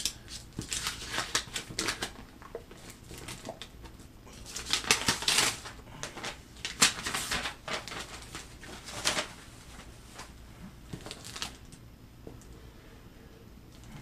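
Cardboard mailing box being cut open: a blade scraping and slitting along packing tape in short irregular strokes, with tape tearing and paper rustling between them.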